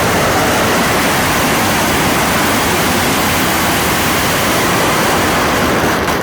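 A firework giving off a loud, steady, dense hiss, like a ground fountain spraying sparks. The hiss begins to thin out near the end.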